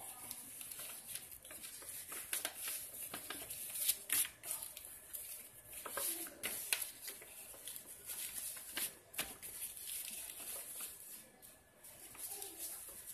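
Sheet of paper being folded and creased by hand: irregular rustles and crisp crackles, with scratchy strokes as folds are pressed flat against the surface.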